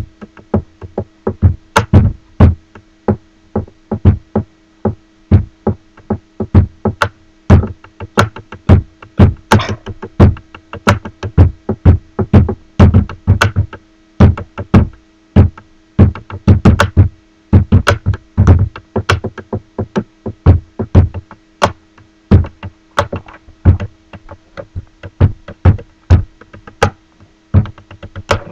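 Pen drumming on a wooden tabletop: fast, rhythmic clicks and knocks played as a drum-like beat, with a faint steady hum underneath.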